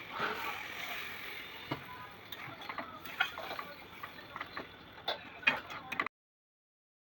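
Chicken kosha frying in a pan with a soft sizzle, broken by sharp clicks and taps of a stirring utensil against the pan. The sound cuts off to dead silence about six seconds in.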